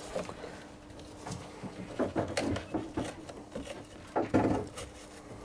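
A screwdriver scraping and clicking inside a ribbed marine-toilet waste hose, with rustling handling, as a blockage of packed toilet waste and tissue is dug out. The scrapes come in short clusters, the louder ones about two seconds in and again just after four seconds.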